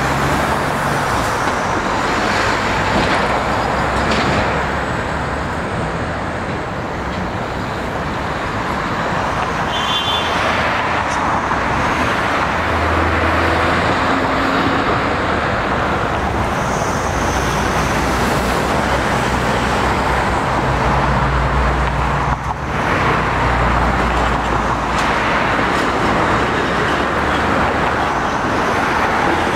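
Steady road traffic noise from cars and a city bus driving past on a multi-lane road, with a deeper rumble now and then as heavier vehicles pass.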